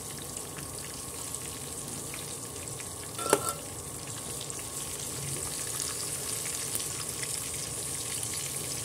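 Chicken pieces deep-frying in hot oil in a kadhai, a steady sizzle. About three seconds in, a metal slotted spoon clinks once against the pan.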